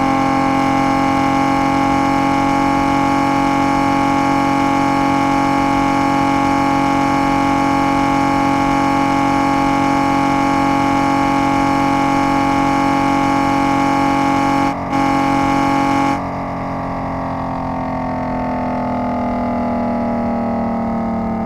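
V8 engine held at steady high revs with a constant droning note, cutting out for a moment about 15 seconds in. About a second later the revs begin to fall slowly, the pitch gliding down.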